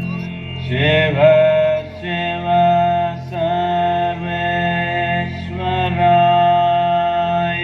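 Devotional Shiva chant: a voice singing long held notes, sliding into each one, over a steady low drone.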